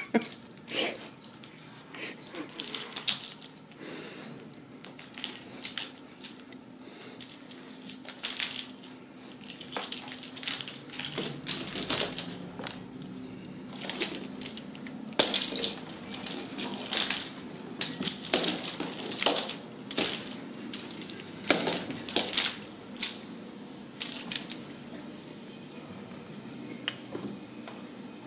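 Ragdoll kittens playing: irregular clicks and taps of their claws and paws on a hardwood floor as they chase and bat string toys about.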